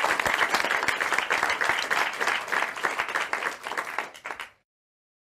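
Applause, a dense patter of many hands clapping, that thins out near the end and then cuts off abruptly to silence.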